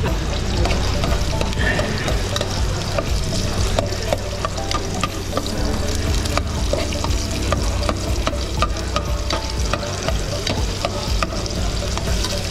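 Sliced onion and garlic sizzling in oil in a metal pot while a metal spoon stirs them, scraping and clicking against the pot many times, over a steady low hum.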